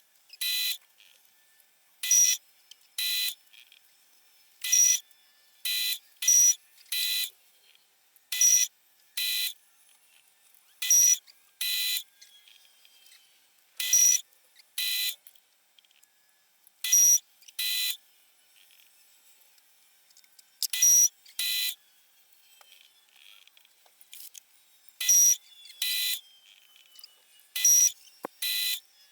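Electronic buzzer beeping in pairs, a louder beep followed by a softer one, with a pair every two to four seconds at uneven intervals.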